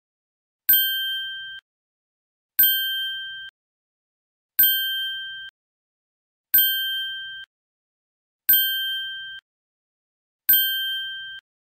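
A bell-like ding sound effect repeated six times, about every two seconds; each is a sharp strike with a clear ringing tone that cuts off abruptly after about a second.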